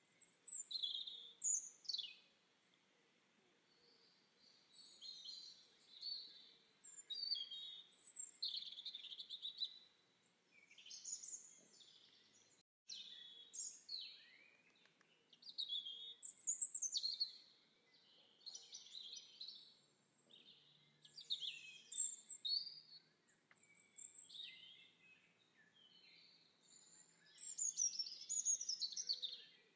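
Birds chirping and singing: many short chirps, trills and quick downward sweeps, coming in clusters with brief pauses between them.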